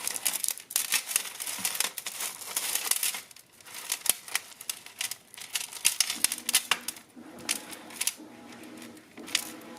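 Costume jewelry chains and beads clicking and rattling as a tangled necklace is worked free of a pile of jewelry, with some crinkling.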